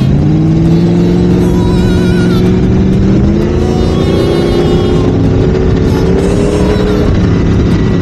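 Boss Hoss V8 motorcycle engine pulling on the open road, its pitch climbing steadily for several seconds as it accelerates, then falling back near the end.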